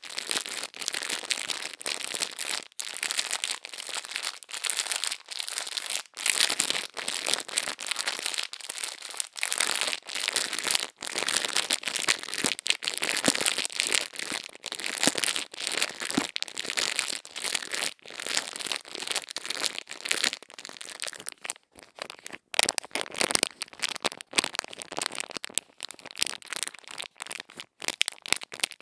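Crisp, close-miked ASMR crackling and crinkling: a dense, irregular stream of fine scratchy clicks, mostly high in pitch, with only brief pauses.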